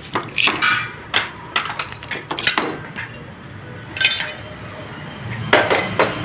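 Metal hand tools clinking and clanking against a motorcycle engine during teardown: a string of sharp, irregular metallic knocks, some ringing briefly.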